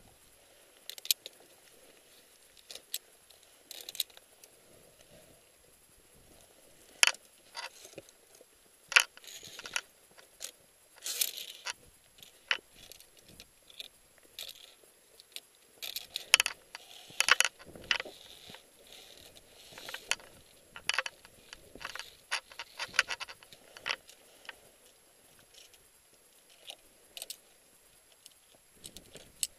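Irregular sharp clinks and clicks of climbing gear against a via ferrata steel safety cable, mixed with boots scraping and crunching on rock, coming thickest in the second half.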